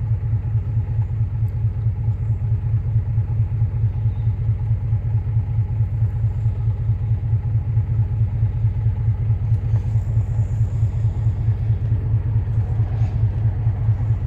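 Infiniti G35's 3.5-litre V6 idling, a loud low rumble with a steady, rapid pulsing beat. The engine is under diagnosis for a misfire and lack of power.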